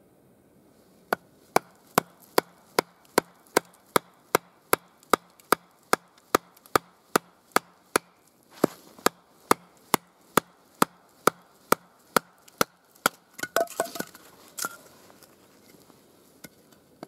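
Batoning: a wooden baton beating the back of a hatchet driven into an upright log, some thirty evenly spaced knocks at about two and a half a second. Near the end a short cluster of cracks and knocks as the log splits apart.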